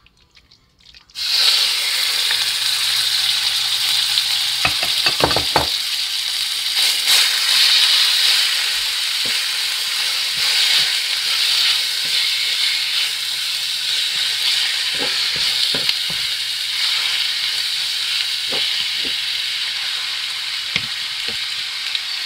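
Seasoned raw chicken pieces hitting hot oil in a wok, starting with a sudden loud sizzle about a second in and frying with a steady hiss throughout. A few light knocks come from stirring.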